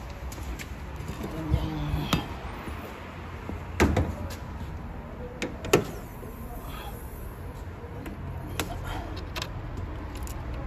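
2007 Hyundai Sonata engine idling steadily, running again on its newly fitted fuel pump assembly. A few sharp knocks and clunks come over it, the loudest about four and six seconds in.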